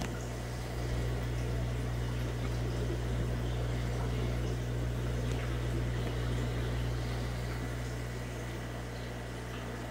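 Steady low hum of aquarium pumps and filter running, with water bubbling over it; the hum swells a little about a second in and eases back near the end.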